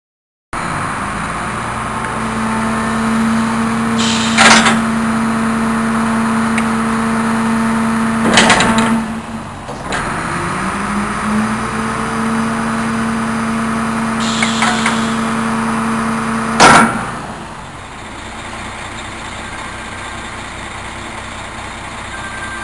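Rear bin-lift hydraulics of a DAF refuse truck: the engine and hydraulic pump run at raised speed under load with a steady whine, which dips and climbs back about ten seconds in. Loud metal clanks come three times, about 4, 8 and 17 seconds in, the last the loudest. After that the truck settles to a quieter idle.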